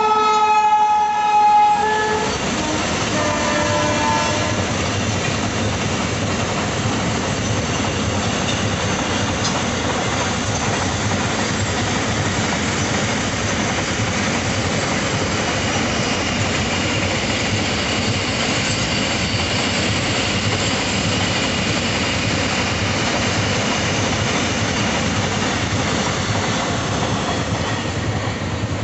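Indian Railways electric freight locomotive's air horn sounding a long blast that ends about two seconds in, then a shorter blast, followed by a long container freight train rolling past with steady wheel and wagon noise and clickety-clack over the rail joints.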